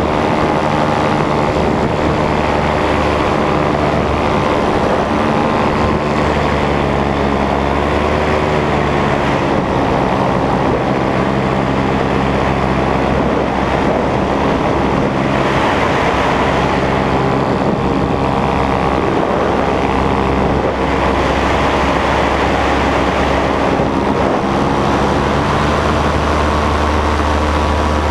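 Paramotor's Nitro 200 two-stroke engine and propeller running steadily in flight, loud and close, with the engine note shifting briefly as the throttle changes about eight seconds in.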